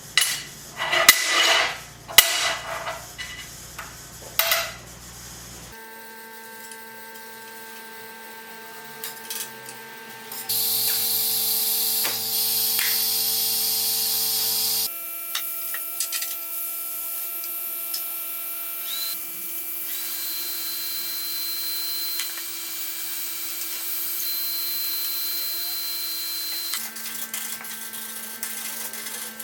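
Electric power tools at work on steel, heard in several short cuts: a few knocks of metal being handled, then a steady motor hum that changes pitch from one cut to the next. A louder stretch with a hiss, like a cut being made, comes about a third of the way in.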